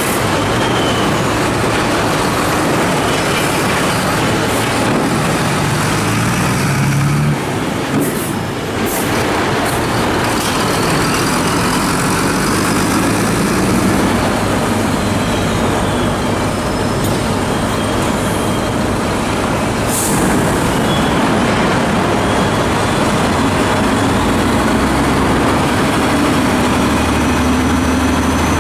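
Heavy HOWO dump trucks' diesel engines running steadily, with a few sharp metallic knocks about eight seconds in and again near the twenty-second mark. Near the end the engine note strengthens as a loaded truck begins raising its tipper bed, with a faint rising whine over it.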